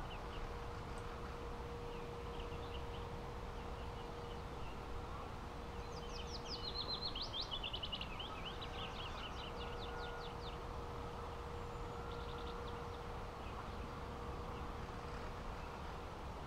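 Meadow ambience with faint bird chirps, and a songbird singing a quick run of high, falling notes for about four seconds in the middle. A faint steady hum lies underneath.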